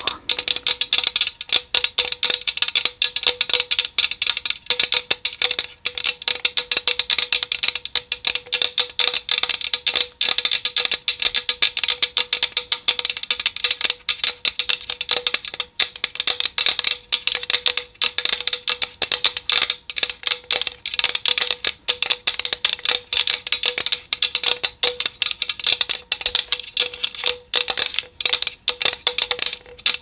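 Close-up wet mouth sounds of a hard Blow Pop lollipop being sucked and licked: a dense, rapid run of smacking clicks, over a faint steady hum.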